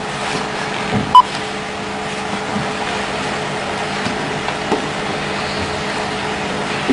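Steady room hum with one short, high electronic beep about a second in, and a few faint soft knocks.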